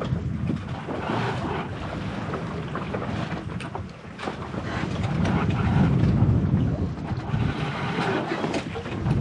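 Wind buffeting the microphone over the rush of sea water along a sailboat's hull under way, swelling about five seconds in.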